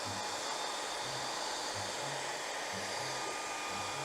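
Handheld electric hot-air blower running steadily at full blast, a rushing hiss with a thin steady whine, used to warm the motorcycle tank's paint protectors so they peel off.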